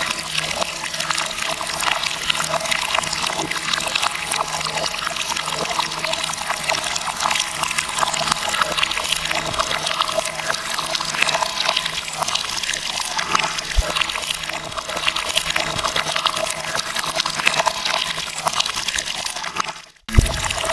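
Running water, a steady even rush, that drops out for a moment near the end and then starts again.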